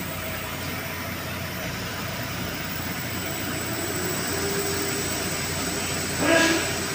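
Steady drone of machinery in a pump room, with a constant low hum tone. About six seconds in, a brief, louder pitched sound stands out over it.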